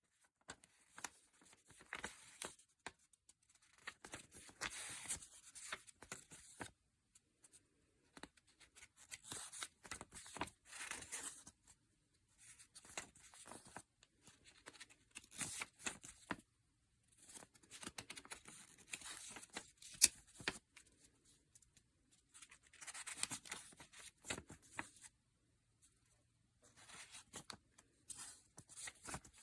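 Faint rustling, scraping and clicking, like hands handling a small object or packaging, in irregular bursts of a few seconds with short pauses between, and one sharp click about two-thirds of the way through.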